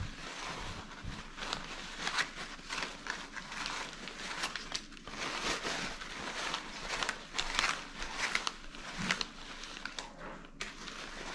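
Paper towel crumpling and rustling, with the crinkle of vacuum-seal plastic bags, as spice-rubbed pork tenderloins are wiped and wrapped by hand. The crinkles come in quick, irregular bursts.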